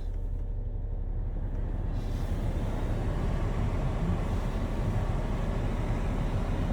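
Car engine idling, heard from inside the cabin, with the heater blower fan rushing steadily; the fan's rush grows louder about two seconds in.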